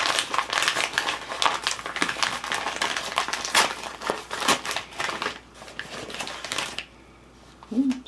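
A mailing envelope being crinkled and rustled in the hands as it is opened, a dense, irregular crackle that stops about a second before the end.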